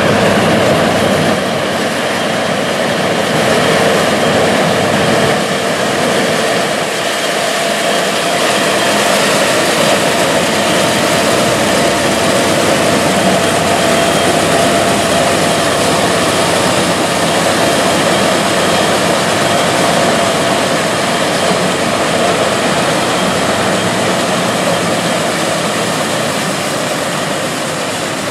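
International 856 tractor running under load with a mounted International 234 corn picker-sheller working, harvesting corn: a loud, steady mechanical din with a few held whining tones over it.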